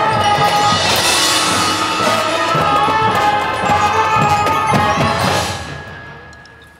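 Marching band of brass, woodwinds and percussion playing held chords, with a bright crash about a second in. About five and a half seconds in the music dies away to a quiet tail.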